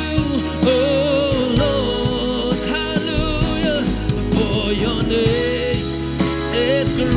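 Worship music: a band playing with a singer holding long, wavering notes over sustained low tones.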